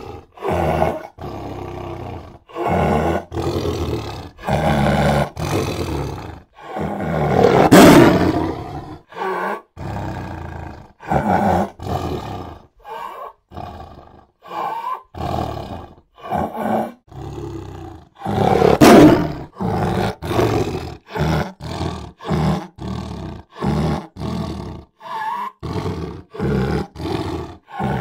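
Big cats roaring: a rapid string of short roars with brief gaps between them, and two longer, louder roars about 8 and 19 seconds in.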